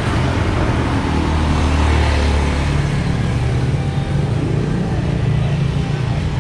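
Street traffic: the engines of cars and motor scooters on the road alongside, a steady low hum that swells and eases as vehicles go by.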